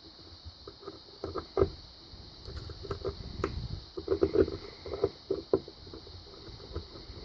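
Irregular metal clicks, scrapes and knocks of a tool working at the retaining clip on the bottom of a padlock to pry it off, with two sharper knocks standing out.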